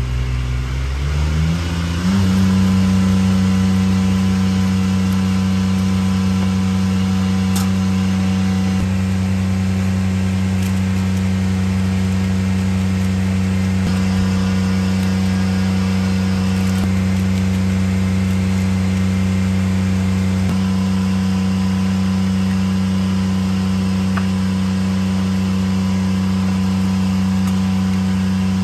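A small engine speeding up over the first two seconds, then running steadily at high speed.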